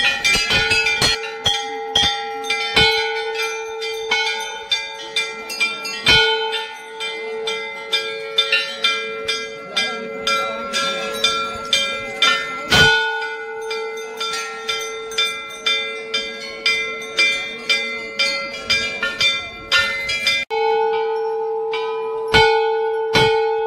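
Temple bells rung over and over, with quick irregular strikes about two or three a second over a steady ringing tone. The ringing drops out for a moment near the end and then carries on.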